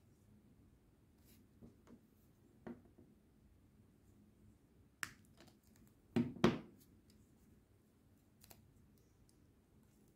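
Small handling sounds of thin wires and a red-handled metal hand tool being worked over a plastic bag. Scattered faint clicks, a sharp click about five seconds in, then two louder knocks just after six seconds.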